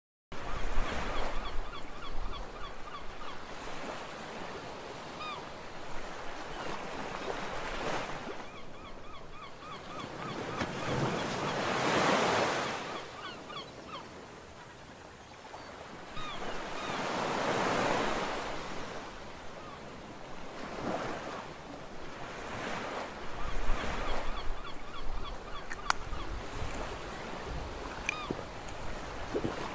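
Ocean surf: waves breaking and washing up a beach, swelling loudest about twelve and eighteen seconds in.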